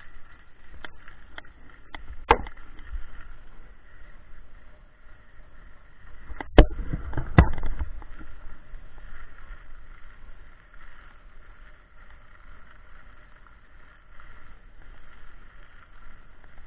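Skis sliding over snow, a steady hiss, with a sharp knock about two seconds in and two louder knocks around six and a half and seven and a half seconds in.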